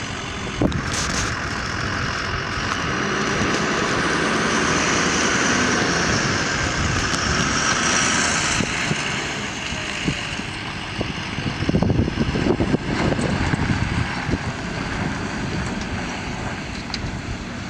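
Fire engine running steadily with a dense mechanical noise that swells and then eases, with a cluster of sharp knocks about two-thirds of the way in.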